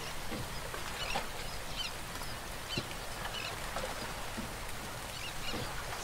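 Outdoor ambience: a steady background hiss with scattered faint high chirps from small birds.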